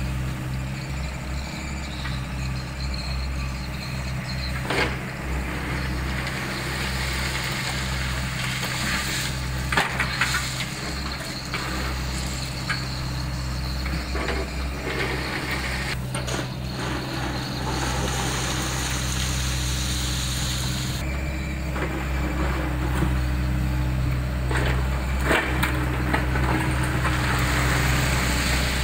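Diesel excavator engine running steadily, with a few sharp knocks and scrapes as the bucket digs into a pile of crushed stone.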